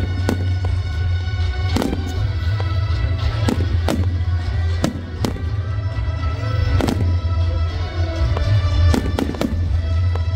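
Fireworks display: aerial shells bursting in a string of sharp, irregular bangs, sometimes several within a second. Music plays steadily underneath.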